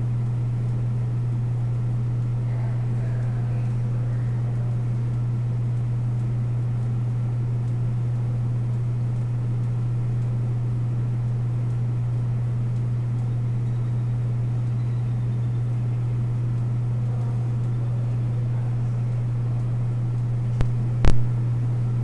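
Steady low mechanical hum, unchanging throughout, with a sharp click about a second before the end.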